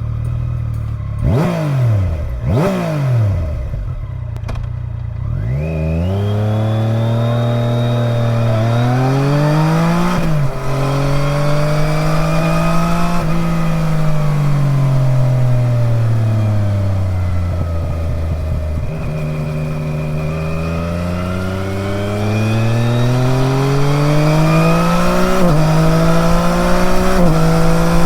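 Yamaha Niken GT's three-cylinder engine through an Akrapovic exhaust that still has its catalyst. It idles and is blipped twice, then pulls away and accelerates up through the gears, the pitch rising and dropping suddenly at each shift. Midway it eases off with the pitch falling slowly, then accelerates through the gears again.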